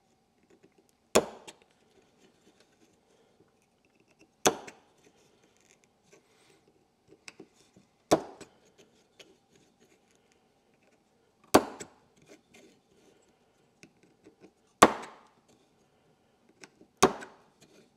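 Hammer tapping a pin punch to knock support material out of the small through holes of a 3D-printed PLA part resting on a wooden block: six sharp strikes, one every three or four seconds, with faint small clicks between them.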